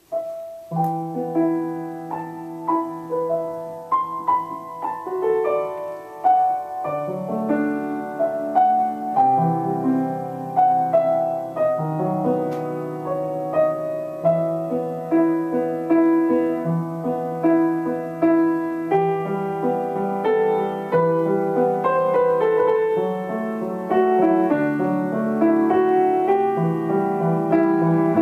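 Grand piano played solo, a melody over chords that starts right away, with lower bass notes coming in about seven seconds in.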